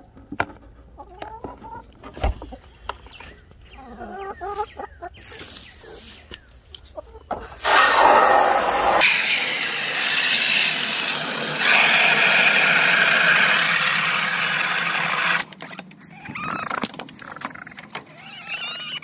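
Hens clucking, with scattered clicks and taps. In the middle, a loud steady rushing noise lasts about eight seconds and cuts off suddenly; then the clucking goes on.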